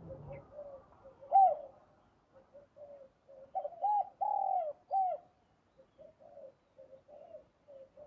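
Spotted dove cooing: a series of low coos. One loud coo comes about a second and a half in, a run of louder rising-and-falling notes follows a few seconds in, and softer coos come near the end.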